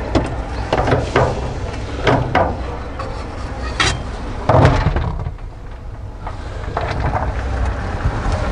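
Aluminium popcorn pot on a street popcorn cart being lifted and emptied: irregular metal knocks and clatter as the pot is handled and the popcorn is tipped onto the cart's metal tray, the loudest clatter about halfway through, over a steady low rumble.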